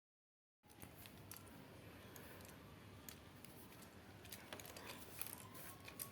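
Faint room noise with scattered light clicks and ticks, like small objects being handled, starting from dead silence about half a second in.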